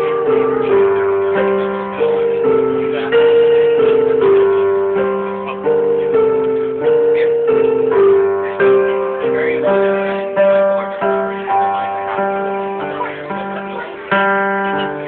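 Instrumental passage of a live song, keyboard-like notes struck a few times a second and dying away between strikes. It is recorded on a mobile phone, so the sound is dull and cut off at the top.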